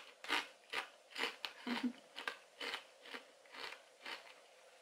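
Crunchy chewing of a Doritos tortilla chip: about two crunches a second, growing fainter near the end.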